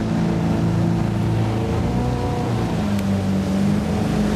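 Motorboat running fast at planing speed: a steady engine drone with water rushing and hissing along the hull.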